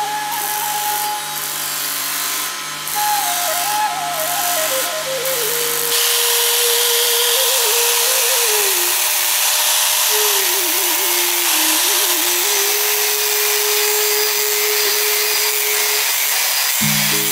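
Electric angle grinder grinding a khukuri's steel blade, a steady high hiss from about six seconds in. Before that, a motor-driven grinding wheel hums against the blade. Instrumental Nepali folk music with a wandering flute melody plays over both.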